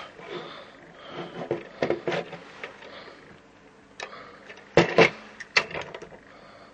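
Handling knocks and clicks as a plastic dial kitchen scale and a metal air pistol are moved, set down and laid on top of each other, with a pair of sharp knocks, the loudest, a little under five seconds in.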